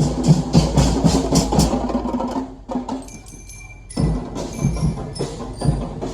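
Background music with a steady percussive beat. Near the middle the beat drops out for about a second and a half, leaving a few high chiming notes, then comes back.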